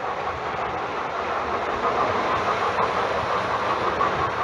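Postwar Lionel O27 model trains running on three-rail metal track: the steady whir of the electric motor and the rattle of metal wheels on the rails.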